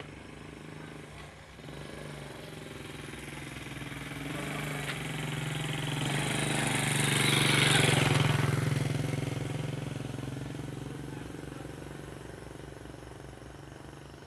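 A steady low engine hum, with a heavy truck's engine and road noise growing louder, peaking a little past halfway, then fading as it passes close by.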